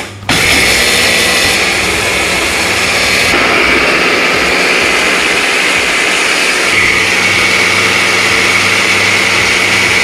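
Electric hand-blender chopper running steadily with a high whine as it grinds oats into flour. It stops for a moment right at the start, then runs on without a break.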